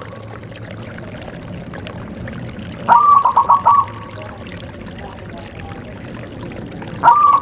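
Zebra dove (perkutut) cooing: one phrase about three seconds in, an opening note followed by four quick, clipped coos, and another phrase beginning near the end, over a steady low background noise.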